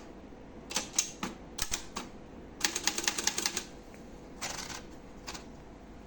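Olivetti Lettera 32 manual typewriter being typed on: sharp separate key strikes in irregular groups, a quick run of about ten strikes about halfway through, then a few more before it stops near the end.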